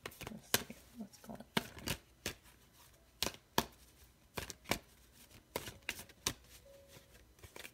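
A tarot deck being shuffled by hand: irregular sharp snaps and clicks of the cards, about two a second.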